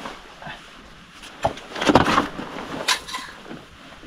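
A few sharp knocks and taps with rustling in between, the sharpest about a second and a half in and near three seconds.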